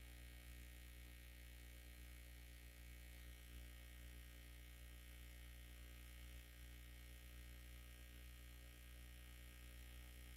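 Near silence: only a faint, steady low hum with light hiss, the recording's background noise.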